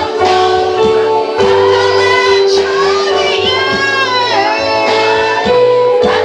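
Worship music: a high voice singing a song over a band with held bass notes and a steady beat.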